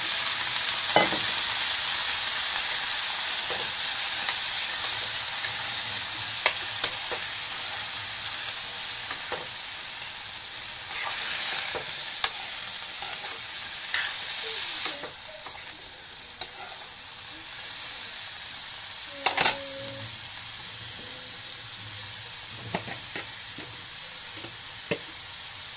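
Chopped banana stem frying in hot oil in a kadai, with curry leaves, chillies and soaked black dal, while it is stirred. The sizzle is loud at first and dies down steadily. Scattered clinks of stirring against the pan, with one louder ringing clank about 19 seconds in.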